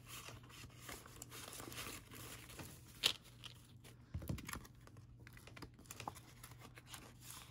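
Paper banknotes rustling and crinkling as a stack of bills is handled and slipped into a binder cash envelope. There is a sharp tick about three seconds in and a soft thump a second later.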